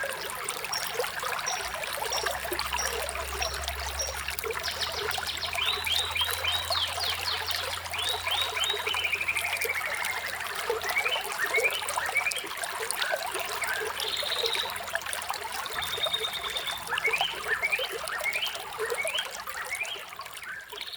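Small stream trickling and splashing, with several songbirds chirping and trilling over it in quick repeated phrases. The sound starts to fade out near the end.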